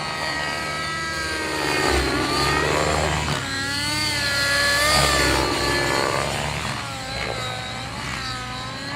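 Radio-controlled helicopter flying 3D aerobatics, its pitch swinging up and down again and again as it manoeuvres, loudest about two and five seconds in.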